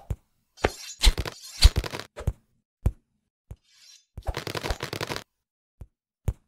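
Cartoon sound effects for a stick-figure animation: a quick series of short, sharp hits and thumps with dead silence between them, a noisy scuffle of blows about a second in, and a longer rattling burst past the middle.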